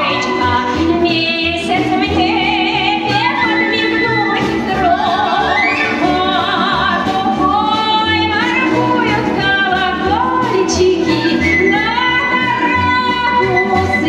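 Woman singing a high melody with vibrato and upward slides over an instrumental backing with a steady bass pulse.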